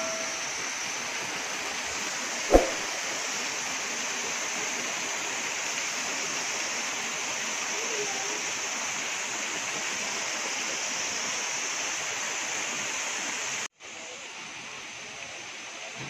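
Steady rush of water from a mountain waterfall and stream. A single brief thump comes about two and a half seconds in. Near the end the sound drops out for an instant and comes back quieter.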